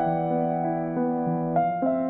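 Background music: soft piano or electric-piano melody with sustained notes.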